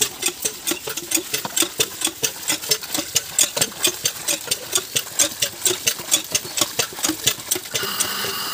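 Cast-iron tubewell hand pump worked fast, its handle and piston clanking about three strokes a second as water is drawn for priming the electric pump. Near the end the strokes stop and a small electric water pump motor starts up with a steady hum.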